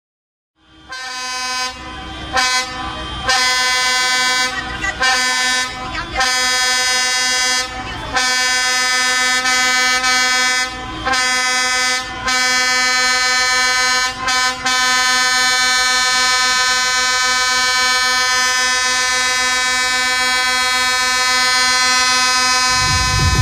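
A loud air horn sounds a run of blasts on one steady pitch, with short breaks between them, then holds one long unbroken blast for the last eight seconds or so.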